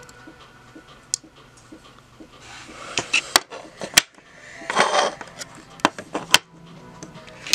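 Sharp plastic clicks and knocks from a USB 3.0 card reader holding a Sony Memory Stick Pro Duo being handled and plugged in. About six clicks come from a third of the way in, with a short scraping rustle near the middle.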